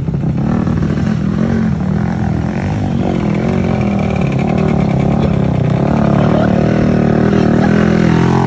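Off-road motorcycle engine running hard under load, its revs wavering up and down and building toward the end.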